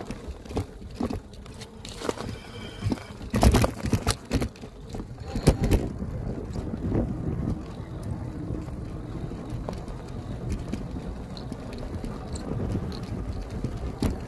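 Electric bike rolling over rough off-road ground: a steady low rumble from the tyres and riding, with a cluster of sharp knocks and rattles a few seconds in as the bike jolts over bumps.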